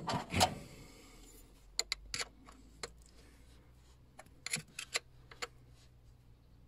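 Small metal parts handled and fitted at the banjo bolt of a diesel injection pump's boost-compensator diaphragm housing: a knock and rustle at the start, then a scatter of sharp metallic clicks. The bolt is being refitted with fresh sealing washers to seal a leak that had cost the engine its boost.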